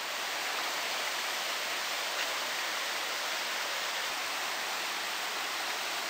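Clear forest river babbling and splashing over fallen logs and stones in small cascades, a steady, even rush of water.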